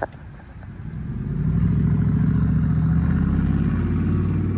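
A vehicle engine nearby, rising in over about a second and then running steadily with a low, even note.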